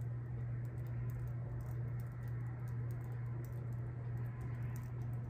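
Makeup brush bristles rubbing and tapping on the cheek as contour makeup is blended in: a fast, soft, scratchy patter of small strokes, over a steady low hum.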